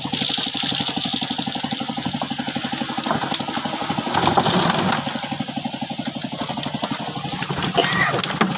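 An engine idling steadily with a fast, even chug.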